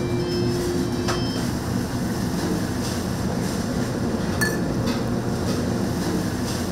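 Steady roar of a Chinese-restaurant wok burner at full flame while fried rice is cooked, with a few sharp metal clinks, about a second in and again past the middle.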